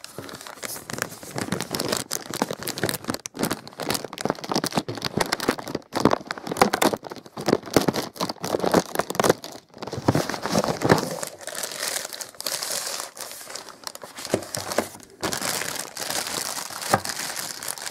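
Clear plastic packaging bag crinkling and rustling as it is handled, an irregular, unbroken run of crackles.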